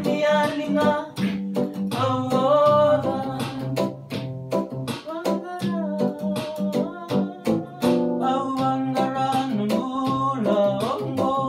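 Acoustic guitar strummed in a steady rhythm while a small group of men sing a song in Fijian together.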